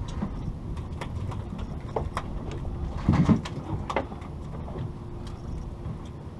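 Steady low rumble on a fishing boat at sea, with scattered light clicks and knocks and a louder thump about three seconds in.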